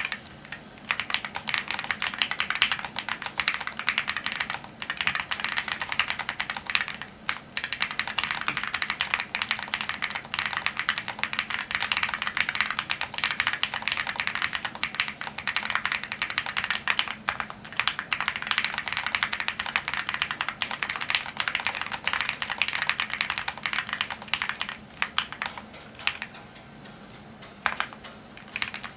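Fast typing on an Owlab Spring mechanical keyboard with Matrix x TTC 01 linear switches: a rapid, continuous stream of keystrokes with a few short pauses, and a longer lull near the end.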